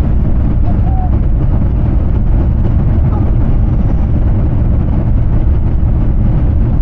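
Airbus A350-900 on landing heard from inside the cabin: a loud, steady low rumble of engines and airflow, with no distinct events.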